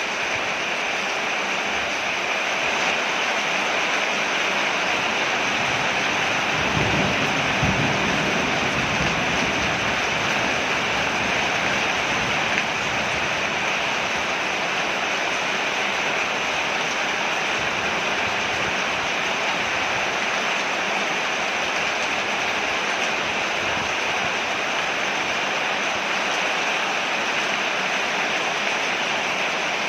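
Steady rain falling on a porch, an even hiss of water with no letup. A brief low rumble swells about seven seconds in.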